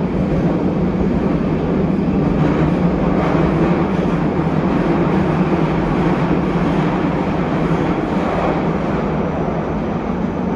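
Higashiyama Line subway train running through a tunnel, heard from on board: a steady low rumble of wheels on rail and traction motors.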